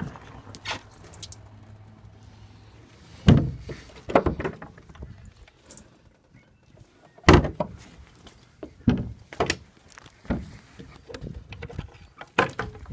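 Deck hatch lids and their pull-ring latches on a Crevalle 26 Bay boat being opened and dropped shut: a series of sharp, separate thunks, about six in all.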